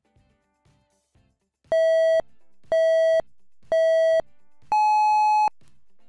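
Electronic countdown beeps: three short tones of the same pitch about a second apart, then a longer, higher tone, like a start countdown signalling that the test tone begins.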